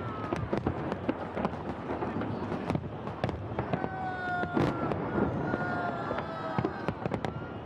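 Fireworks salute: a dense run of crackling pops and bangs from bursting shells. Around the middle, a long drawn-out cheer is shouted twice over the crackle.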